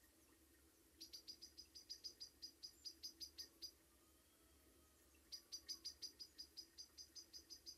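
Faint, rapid, evenly spaced high chirps, about seven a second, in two runs with a pause of a second or so between them.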